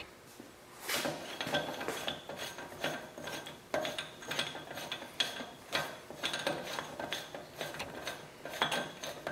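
Large steel spindle-nut socket turned by hand on a Toyota Land Cruiser 100 Series front spindle, threading on the first wheel-bearing nut. Irregular light metallic clicks and scraping, starting about a second in.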